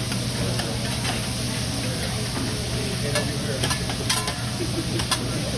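Food sizzling and frying on a hibachi griddle while it is stirred, with a few sharp clicks about halfway through and near the end.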